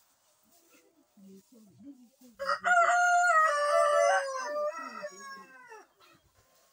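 A rooster crows once: a single long crow of about three seconds, starting a couple of seconds in, stepping in pitch and falling away at the end.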